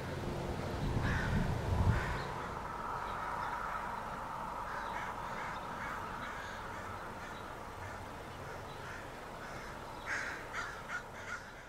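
Birds calling repeatedly, with a quick run of calls near the end. Under the first two seconds, the low rumble of a receding passenger train fades out.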